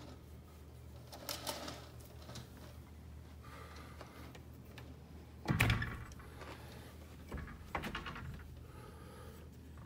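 A steady low hum under scattered small clicks and rustles, with a short louder thump about halfway through.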